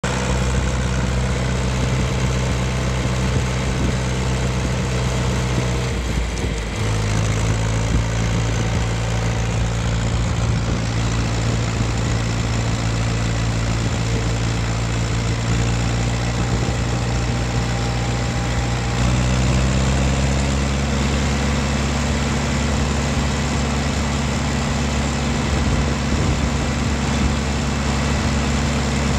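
John Deere tractor engine running steadily while the tractor drives along. About six seconds in the engine note breaks briefly and comes back at a different pitch, and between about 19 and 21 seconds it rises as the engine speeds up.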